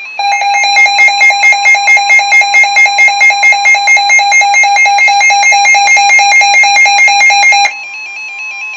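Weather alert radio sounding its loud pulsing alarm, about four beeps a second, over NOAA Weather Radio's steady 1050 Hz warning alarm tone, signalling an incoming severe thunderstorm warning. The beeping stops near the end, leaving the steady tone on its own.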